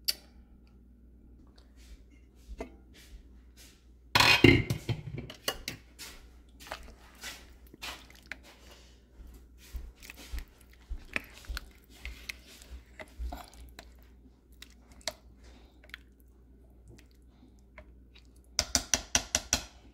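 A slow cooker's glass lid clatters about four seconds in, followed by scattered small wet clicks from the cooking pinto beans. Near the end a spoon stirs the beans in the crock with a quick run of clicks.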